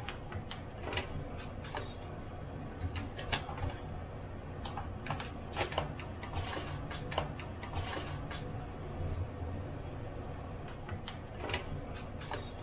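Kitchen handling sounds: light knocks and clicks of plastic bowls and utensils on a stainless steel sink, with two short rustling swells around the middle as a paper seasoning packet is handled, over a low steady hum.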